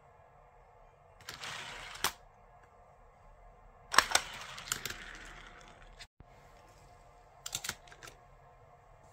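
Die-cast Hot Wheels cars on a plastic toy track: a short rolling rattle about a second in that ends in a click, a sharp clack about four seconds in followed by a fading rattle, and a few small clicks near the end as a car is set into the track's start gate.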